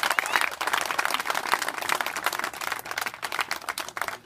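A crowd of wedding guests applauding the newlyweds' kiss, dense clapping that thins out and gets quieter toward the end.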